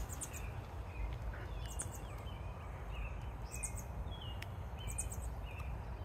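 Small songbirds calling: clusters of short, very high, thin chirps about every second and a half, with a few lower sliding whistled notes between them, over a steady low rumble.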